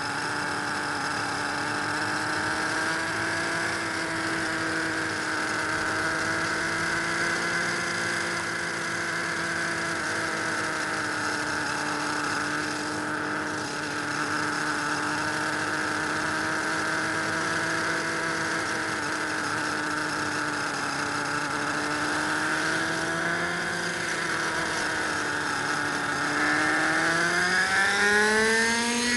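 Radio-controlled model helicopter running, its motor and rotor giving a steady whine that wavers slightly in pitch, then climbs sharply in pitch near the end as it spools up.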